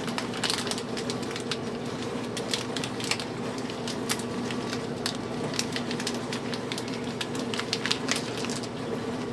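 Snack packaging being handled, with scattered crinkles and clicks over a steady low hum.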